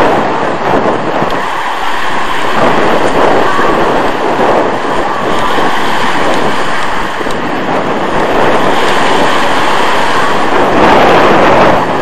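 Small waves breaking and washing over a pebble beach, with strong wind buffeting the microphone: a loud, steady rush of surf and wind that swells a little near the end.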